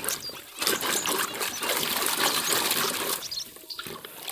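Water splashing and trickling in a basin as a muddy toy is scrubbed and rinsed by hand. The splashing dips briefly about half a second in and eases off after about three seconds.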